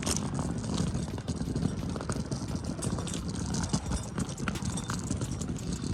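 Wheeled cart rolling over rough ground: a steady low rumble with irregular clattering knocks.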